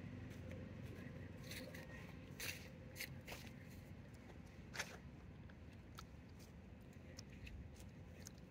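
Quiet outdoor ambience with a low steady rumble, broken by a few faint sharp clicks, about four of them between two and five seconds in.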